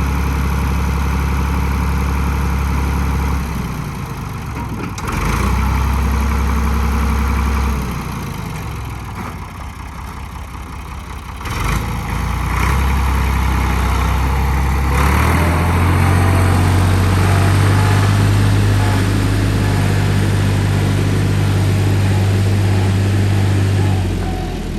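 Ford 545 backhoe loader's engine running, its speed falling and rising several times. It settles at a higher steady speed about fifteen seconds in and drops back just before the end. There is a single sharp knock a little before halfway.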